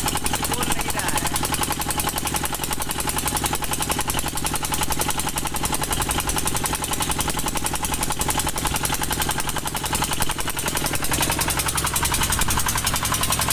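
Engine of a wooden river motor boat running steadily under way, a rapid, even beat that goes on without a break.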